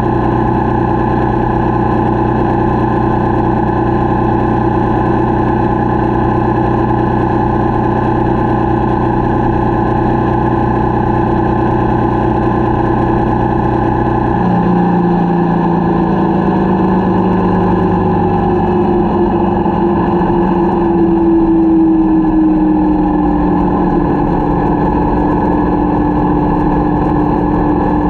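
Motorcycle engine running steadily under way. About halfway through the engine note changes abruptly, then its pitch slowly falls.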